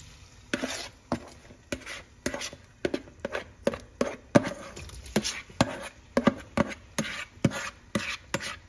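Metal spoon scraping and knocking diced onions and tomatoes out of a bowl into a pot of hot oil: sharp clacks and scrapes about twice a second.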